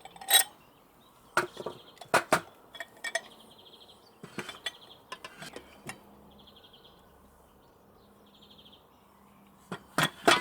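Metal parts of an electric meat grinder clicking and clinking as the grinding head is taken apart to change the knife: a scatter of sharp clicks through the first half and two more near the end. Short, high, buzzy chirps repeat a few times in the background.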